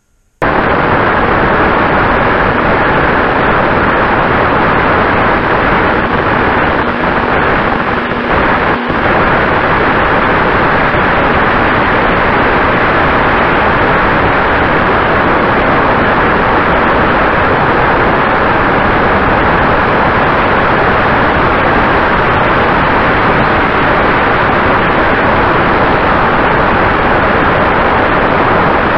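Loud, steady rush of airflow over a camera riding on a flying ParkZone T-28 Trojan electric RC plane, with a faint steady motor whine underneath. It cuts in suddenly about half a second in.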